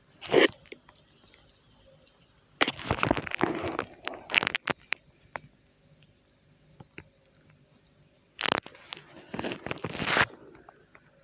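Rustling and rubbing of hands working over a clothed back during a back massage. It comes in three bursts: a brief one at the very start, then longer stretches a few seconds in and near the end.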